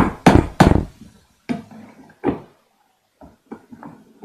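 A quick series of loud thuds, about three a second, that stops within the first second, followed by a few softer, scattered knocks.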